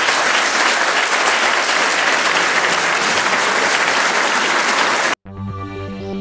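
Large audience applauding, a dense steady clapping that cuts off abruptly about five seconds in, after which music with held notes begins.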